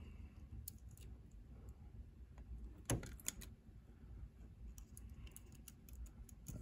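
Small plastic and metal clicks from a handheld adjustable wire stripper closing on thin thermocouple wire and stripping the insulation from its tip, with light handling rattles. The sharpest click is about three seconds in, followed quickly by a second, and a few smaller ticks come near the end.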